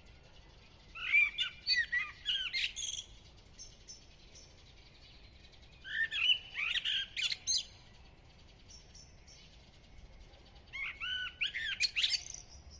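Common blackbird singing: three warbling phrases, each about two seconds long and ending in a high twitter, with pauses of a few seconds between them.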